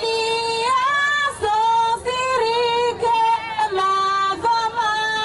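A woman's voice singing long, high held notes that step and slide from one pitch to the next.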